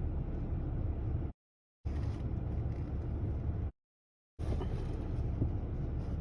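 Steady road and engine noise inside a car's cabin, with no speech. It cuts off abruptly to dead silence twice, about a second in and near the middle, and resumes each time.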